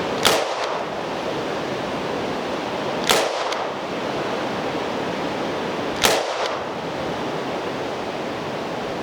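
Ruger GP100 seven-shot revolver firing .357 Magnum double action: three sharp shots about three seconds apart, over a steady hiss.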